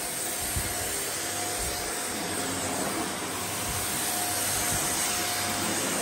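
Shark NV620UKT upright vacuum cleaner running on a carpet rug with its suction turned down, giving a steady hiss of air.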